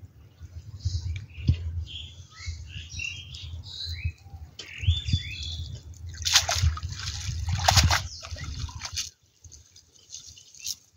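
Water sloshing and splashing as a wet cast net is hauled in and lifted out of a shallow pond, with two louder splashes a little past the middle. Birds chirp during the first half.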